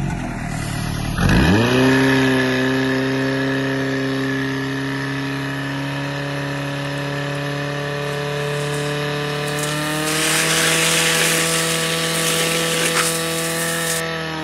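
Portable fire pump's small petrol engine revved up sharply to full throttle about a second in, then running steadily at high revs under pumping load. Near the end its pitch rises a little and a rushing hiss joins it.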